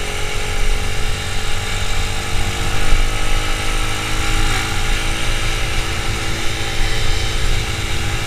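Motorcycle engine running steadily while being ridden, heard from the onboard camera along with road noise.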